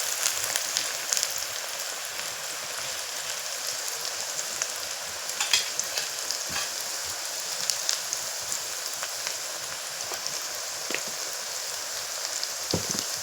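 Food frying in hot oil in a pan for chira fry: a steady sizzle, with scattered sharp clicks and scrapes.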